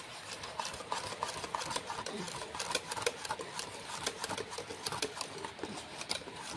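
Wire balloon whisk beating thick cake batter in a metal bowl: rapid repeated strokes, the wires clicking and scraping against the bowl.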